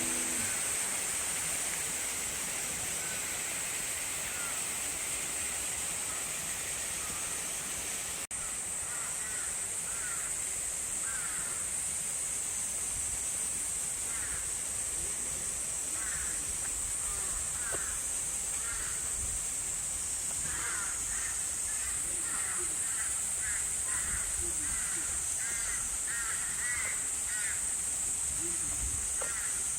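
Forest ambience: a steady high-pitched insect-like drone, with birds giving short repeated calls from about nine seconds in, more often in the second half.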